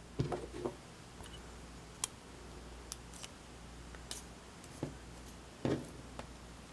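Scattered light clicks and taps from small metal parts and tools of a disassembled euro lock cylinder being handled, with the loudest just after the start, about two seconds in and near the end.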